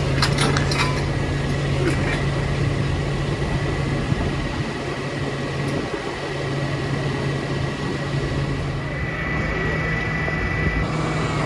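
Ford F650 digger-derrick truck's engine running steadily, with a thin high whine over it. The engine note dips briefly about five seconds in, and a few sharp metallic clanks come in the first second.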